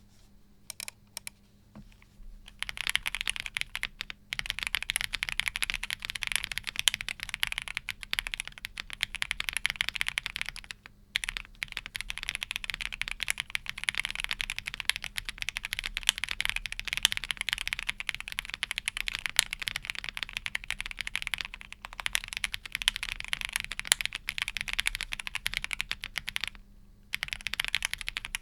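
Typing on a mechanical keyboard fitted with Akko CS Air linear switches: a few single key clicks at first, then fast continuous clacking, with brief pauses now and then.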